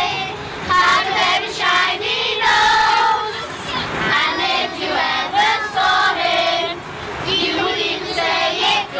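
A group singing together, children's voices leading, with a woman's voice joining in.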